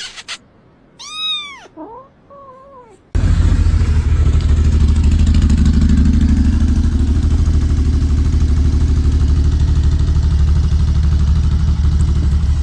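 A cat meows once, a rising-and-falling call about a second in, followed by a shorter, lower wavering meow. From about three seconds in, a loud, steady low rumble with a fine even pulse takes over.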